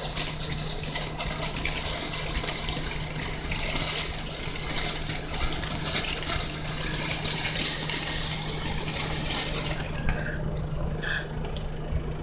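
Ground fountain firework spraying sparks with a steady loud hiss that cuts off about ten seconds in as it burns out.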